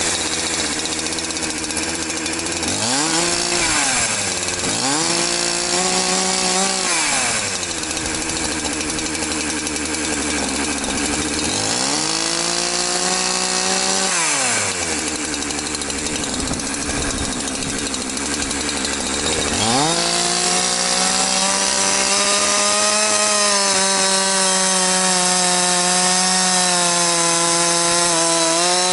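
Large two-stroke gas chainsaw idling and being blipped several times, its engine rising and falling, then held at high revs for the last third as it cuts into a thick log.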